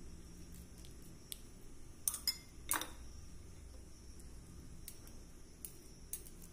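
Steel spoon scraping filling onto bread. A few light clinks about two to three seconds in as it is set down in the glass bowl.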